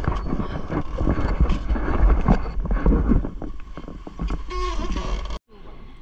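Car door being handled and pushed, with a sharp knock at the start followed by irregular knocks and rustling, and wind buffeting the microphone.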